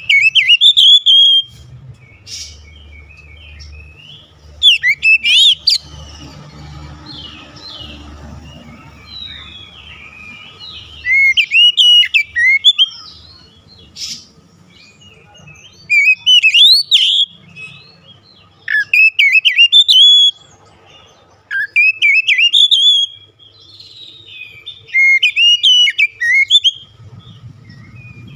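Caged Oriental magpie-robin singing loud, varied phrases of clear whistles and quick gliding notes, about eight bursts with pauses of one to three seconds between them. A faint low hum runs underneath in the first third.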